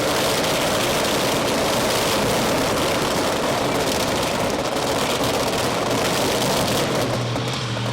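Monster truck engine running hard: a loud, continuous, rough roar. Near the end it settles into a steady low drone.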